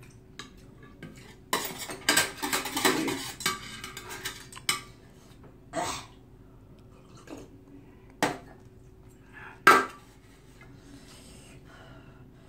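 Metal spoon and chopsticks clinking and scraping against a stainless-steel soup bowl: a busy run of clatter about a second and a half in, then single sharp clinks every second or two.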